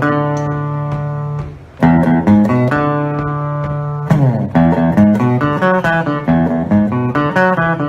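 Music led by a plucked guitar: held chords, then quicker notes after a brief dip about two seconds in.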